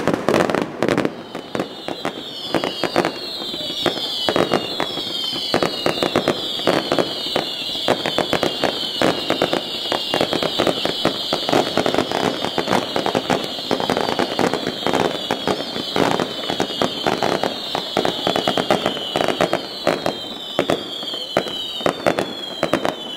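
Aerial fireworks display: a dense, continuous barrage of bangs that starts abruptly, with many overlapping short whistles falling in pitch throughout.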